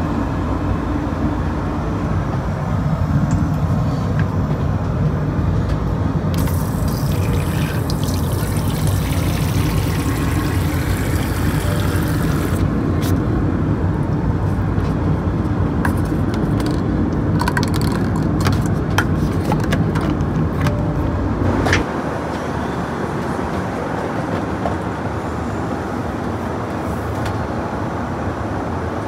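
Steady low roar of an Airbus A330-200 cabin in flight. About six seconds in, water runs from the lavatory sink tap for about six seconds. Scattered clicks and taps of cups and fittings being handled follow, and the deepest part of the rumble drops about three-quarters of the way through.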